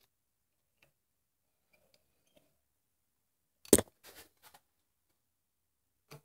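Metal hand tool clacking once sharply against the transmission valve body about halfway through, followed by a couple of lighter taps and one more short tap near the end, with near quiet between.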